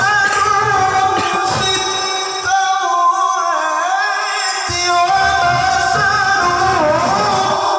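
A man's solo melodic Quran recitation: one voice holding long, ornamented notes that waver and glide up and down in pitch.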